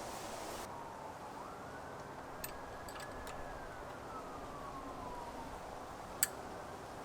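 A faint siren wailing, one slow rise to a held high note and a long fall, with a few light sharp clicks.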